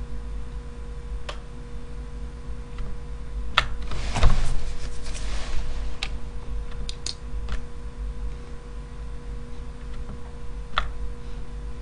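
Scattered clicks of a computer mouse and keyboard over a steady electrical hum, with a louder rustling patch about four seconds in.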